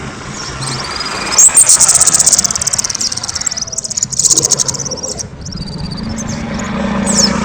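Kemade songbird singing loudly in rapid high chirping trills mixed with rising and falling whistles, loudest about a second and a half in and again around four seconds in.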